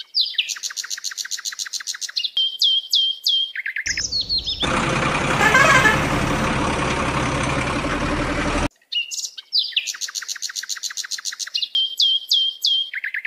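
Rapid series of short, sharply falling bird-like chirps. About four seconds in they cut off abruptly, giving way to roughly five seconds of loud, steady rumbling noise, and then the chirps return. The abrupt cuts mark these as edited-in sound effects.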